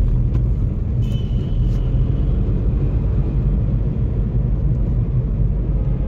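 Cabin noise of a moving Maruti Suzuki S-Presso: a steady low rumble from its three-cylinder petrol engine and the road, heard from inside the car.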